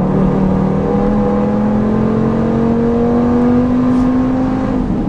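Tuned Audi RS3's turbocharged 2.5-litre five-cylinder engine with an upgrade turbocharger, pulling under load through one gear, heard from inside the cabin; its pitch rises steadily.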